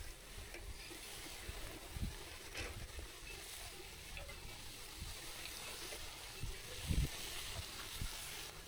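Steady hiss of wind and riding noise during a bike ride, with scattered low bumps and knocks; the loudest thump comes about seven seconds in.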